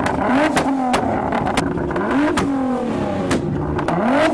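Nissan GT-R's twin-turbo V6 being blipped hard three times, the revs climbing fast and falling back each time, with sharp exhaust pops and cracks between the blips as it spits flames.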